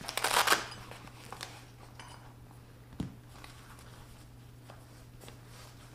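Hand tools being handled: a loud rustle at the start, then light metallic clinks and one sharper knock about three seconds in.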